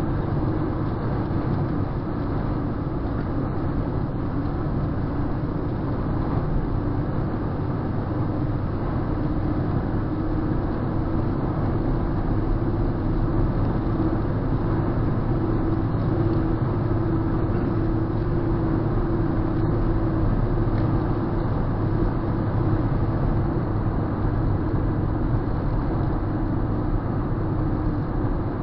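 Car travelling steadily at road speed, heard from inside the cabin: an even rush of tyre and road noise with a steady engine drone underneath.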